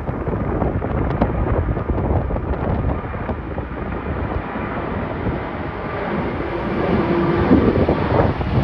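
Strong wind buffeting the microphone over the steady rumble of a jet airliner's engines, growing louder near the end.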